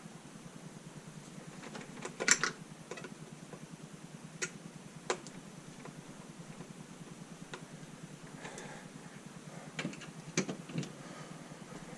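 Scattered sharp clicks and light knocks of objects being handled, about ten spread irregularly, the loudest a little over two seconds in, over a faint steady hum.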